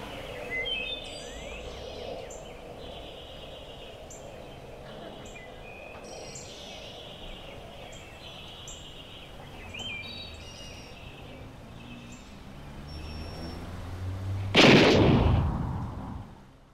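Birds chirping over a faint background hiss. About fifteen seconds in comes a single loud gunshot with a fading echo.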